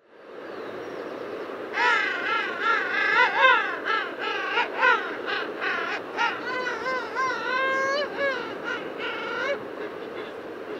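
Penguins calling: a long run of wavering calls that rise and fall in pitch, from about two seconds in to near the end, over a steady background hiss.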